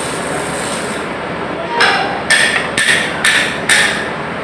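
Handheld grinder cutting into a steel deck plate in about four short, harsh bursts in the second half, over a steady background of the tool running.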